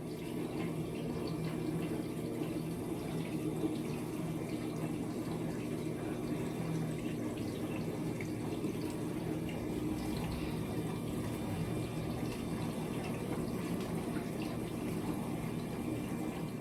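Dishwasher running its wash cycle: water spraying inside the tub over a steady pump hum.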